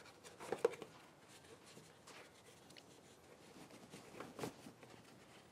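Soft handling sounds of a tractor's air cleaner intake duct being pressed back into place by hand: a few short clicks and rubs about half a second in and again about four seconds in, over quiet room tone.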